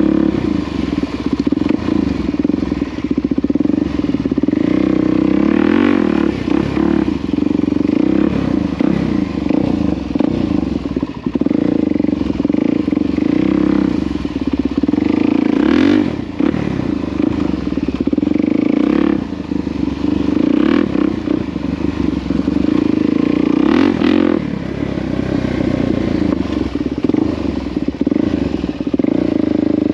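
Single-cylinder four-stroke motorcycle engine running under way, its pitch rising and falling as the throttle is opened and eased off, with sharper climbs in revs about 6, 16 and 24 seconds in.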